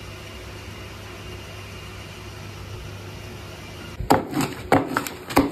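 Steady low hum of kitchen equipment. In the last second and a half come several sharp knocks on cardboard as a pizza is cut into slices in its box.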